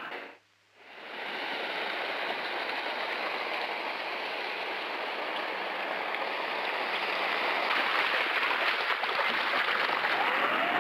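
Steady rushing water noise, growing a little louder past the middle. It cuts out briefly about half a second in.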